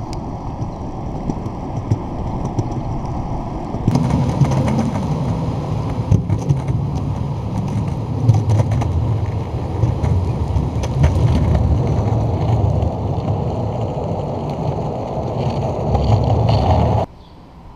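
Globe Big Blazer cruiser skateboard's wheels rolling, a steady rumble on an asphalt path. About four seconds in, once the board is on the bridge deck, it turns louder and rougher, with scattered clicks. The sound drops away abruptly near the end.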